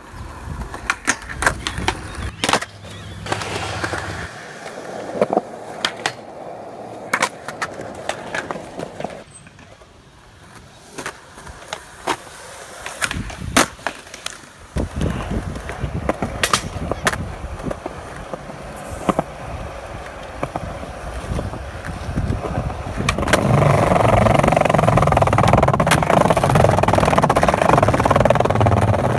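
Skateboard wheels rolling on concrete, with sharp clacks from tail pops, board slaps and landings. Near the end comes a louder, steady rolling rumble as the wheels run over wooden deck boards.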